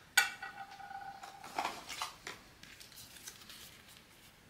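A zinc-alloy pin badge clinks against a hard surface with a short metallic ring that fades over about a second, followed by light clicks and rustling as it and its packaging are handled.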